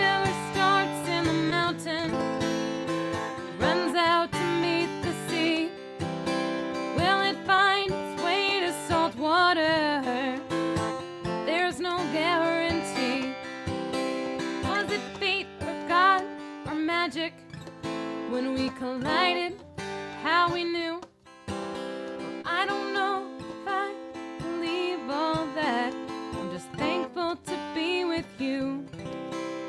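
An acoustic guitar being strummed with a woman singing over it, her voice bending and wavering on held notes.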